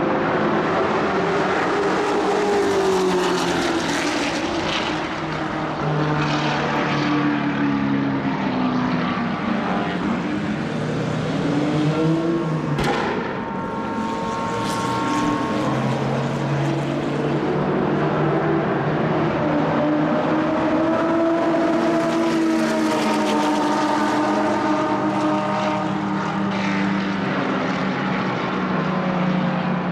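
Engines of 1960s racing cars running hard, revving up and down as several cars pass, their pitches overlapping. A single sharp crack about thirteen seconds in.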